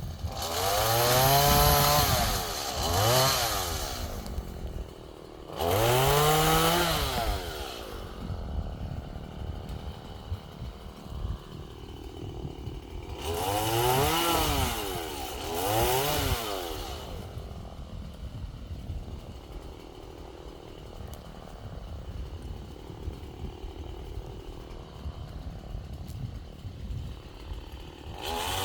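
Chainsaw engine revved in short bursts, its pitch rising and falling each time: two close together at the start, one a few seconds later, two more about halfway through, then a long stretch of idling before another rev at the very end.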